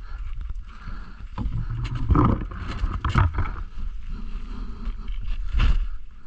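Mountain bike rolling down rocky dirt singletrack: tyres on dirt and rock over a steady low rumble, with knocks and rattles from the bike jolting over rough ground, loudest about two to three seconds in and again near the end.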